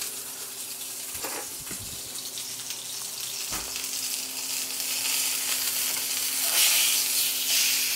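Venison steak sizzling in hot oil in a nonstick frying pan while it is turned over with two forks, with a few faint clicks of the forks. The sizzle grows louder over the last few seconds as the uncooked side goes down onto the hot pan for a sear.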